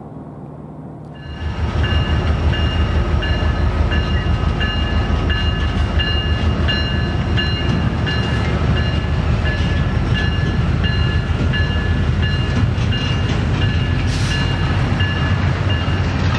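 Double-stack intermodal freight train passing close by, a steady heavy rumble of locomotives and rail cars that starts abruptly about a second in. A high ringing tone repeats evenly, two or three times a second, over the rumble.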